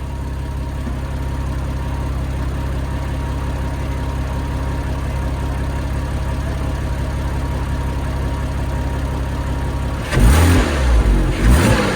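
Porsche Boxster 987's flat-six engine idling steadily after being started on fresh oil, then blipped twice near the end, the pitch rising and falling with each rev.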